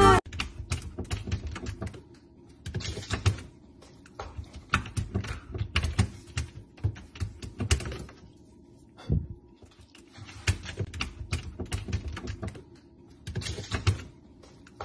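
A puppy's claws clicking and scratching in quick, irregular runs as it scrabbles at an open freezer drawer and on a hard tiled floor, with one soft thump about nine seconds in.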